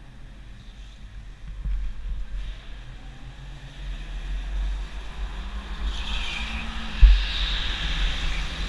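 Go-kart driven at speed, heard from onboard: steady low rumble and wind buffeting on the microphone with a faint motor hum that rises a little, and one sharp thump about seven seconds in.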